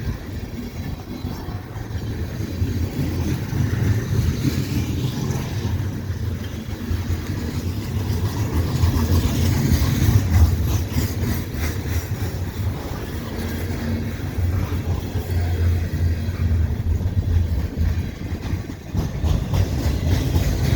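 Freight train cars rolling past: a steady low rumble of steel wheels on rails, with faint clicks of wheels over rail joints.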